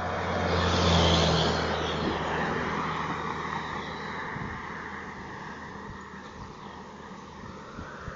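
A motor vehicle passing close by on a bridge: engine hum and tyre noise swell to a peak about a second in, then fade away over the next few seconds.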